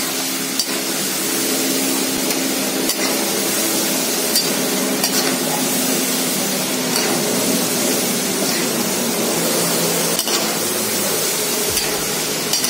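Potato fries deep-frying in very hot oil on a high flame: a steady sizzle, with scattered clinks of a metal slotted spoon stirring them against the pan. This is the second, crisping fry.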